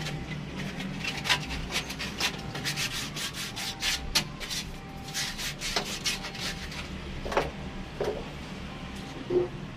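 Irregular rasping strokes of something rubbed or scraped by hand against a plastic pipe, a few strokes louder than the rest, over a steady low hum.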